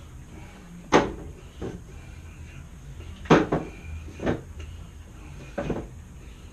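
Wooden knocks and clunks from handling and fitting parts of an old wooden dresser: about six separate hits, the loudest about a second in and just after three seconds.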